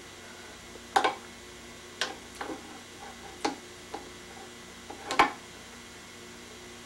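Plastic spoon knocking and scraping against a small plastic bowl as a toddler feeds herself: a run of irregular sharp taps, the loudest about a second in and just after five seconds, over a steady low hum.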